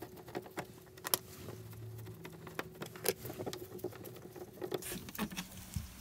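Screwdriver backing out the screws of a light switch and outlet cover plate, then the wall plate coming off: faint scratchy ticks and small clicks, with two sharper clicks about a second and three seconds in.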